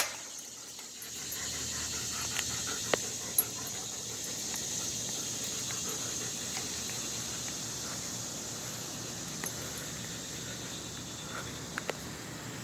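A dog panting steadily, with a few faint clicks about three seconds in.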